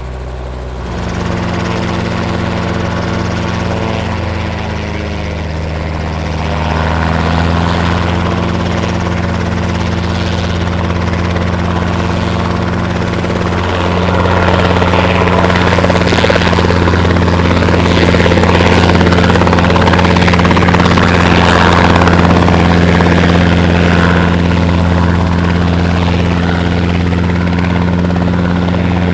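Robinson R22 Beta helicopter's four-cylinder Lycoming piston engine and rotor running up on the ground, the engine pitch rising over the first several seconds as it comes up to flight rpm. About halfway through, the blade noise grows louder and fuller as the helicopter lifts off.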